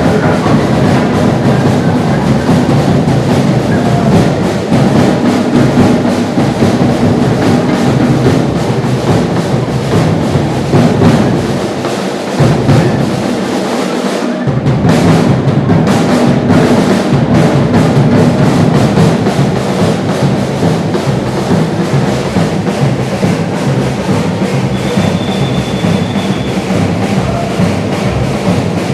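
Batucada samba percussion ensemble (bateria) playing loud, dense drumming. The deep drums drop out for about two seconds midway, then the full ensemble comes back in.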